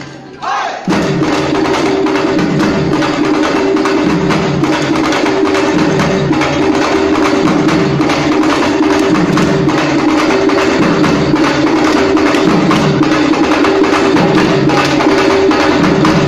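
Live percussion-led music: drums beat a phrase that repeats about every second and a half to two seconds, under a steady held tone. It dips out briefly at the very start, then runs on at full level.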